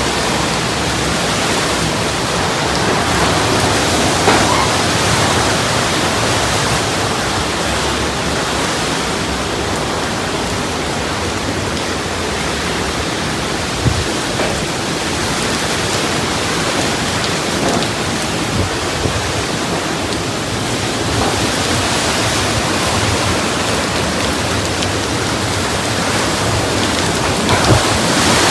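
Hurricane rain and wind: a loud, steady rushing, with a few brief thumps.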